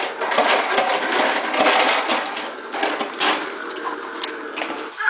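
Toddler's toy push lawn mower being pushed, making its engine-like noise: a dense rattling clatter of clicks over a steady buzz.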